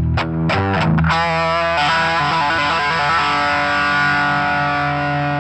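Stratocaster-style electric guitar played solo: a few short chord stabs, then a chord struck and left ringing, sustaining steadily to the end.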